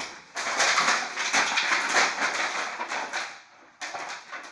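Toy packaging being torn open and handled: loud rustling, crinkling and ripping that thins out after about three seconds into a few light knocks.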